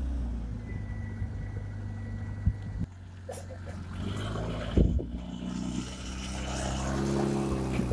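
A vehicle engine running steadily. Its pitch drops just after the start and rises again late on, with a couple of short dull thumps, the loudest about halfway through.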